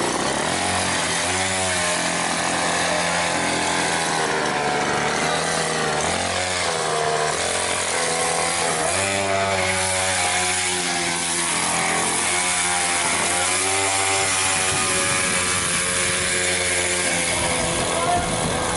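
Small petrol engine on a homemade flatbed cart running under load as the cart drives off, its pitch rising and falling again and again with the throttle, then settling steadier near the end.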